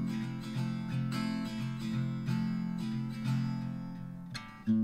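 Background music: an acoustic guitar strummed in steady chords, with a brief drop and a new chord struck near the end.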